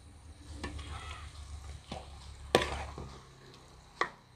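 A metal ladle stirring pork fry in a metal pot, knocking and scraping against the pot about four times, the loudest a little past halfway. Faint sizzling runs underneath as the pork dry-fries in its own fat.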